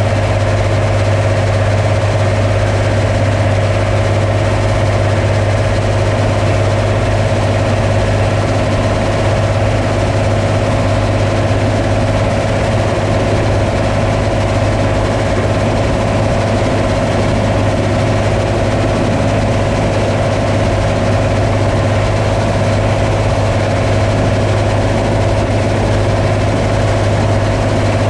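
Combine harvester running steadily: a constant low hum with a steady higher drone over it.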